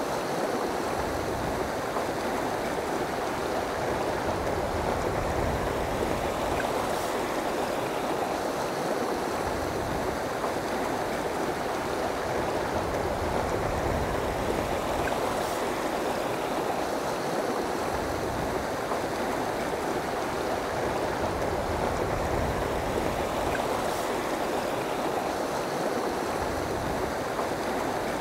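Steady rushing of a river flowing over rocks and riffles.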